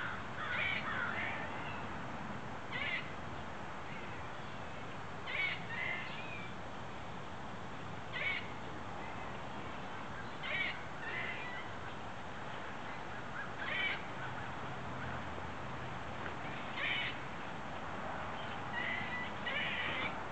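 A squirrel calling from a tree with a short, strange trilling sound, repeated about every two to three seconds, some calls followed by a lower second note. The uploader takes it for territorial calling.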